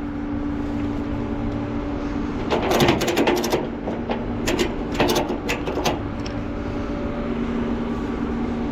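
Vehicle engine running steadily; its pitch drops slightly about two and a half seconds in. Two short spells of rapid clicking and rattling come about three and five seconds in.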